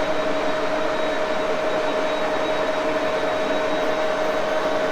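Axelson engine lathe running steadily under power, a constant whine over an even machine hum.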